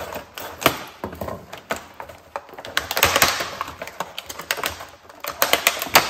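Stiff clear-plastic clamshell packaging crackling and snapping as it is pried open by hand and parts are pulled out. There are irregular sharp clicks throughout, with a longer crinkle about halfway through.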